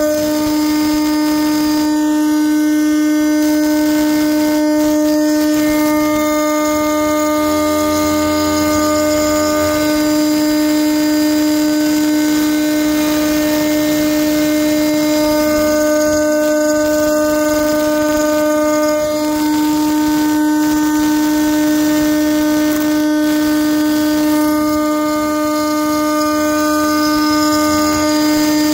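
CNC router spindle turning at 18,000 RPM with its end mill cutting a deep contour in aluminium plate at about 10 mm depth of cut. It makes a loud, steady, high whine with many overtones over a layer of cutting hiss.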